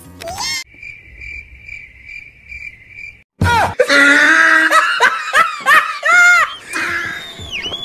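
A high chirp pulsing about three times a second, then, about three seconds in, girls break into loud laughter and squealing.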